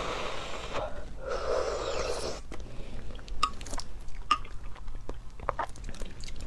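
Breathy blowing on a spoonful of a hot, thick nut-and-dried-fruit drink to cool it, twice in the first two seconds. Then a metal spoon clinks and scrapes against a glass mug in a run of short clicks as the drink is stirred.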